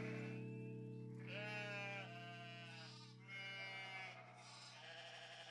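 Goats and sheep in a mixed herd bleating, two wavering bleats in quick succession a little over a second in, over a faint held music chord that slowly fades.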